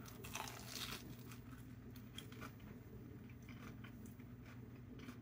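Faint crunching of a bite taken from a Korean fried cheese dog (cheese on a stick in a crisp fried batter) and then chewed. The crunch is strongest in the first second, then thins to scattered soft crackles.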